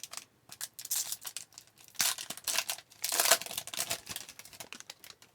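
Trading cards and a foil pack wrapper being handled: crinkling and tearing with sharp snaps and clicks, loudest about two to three and a half seconds in.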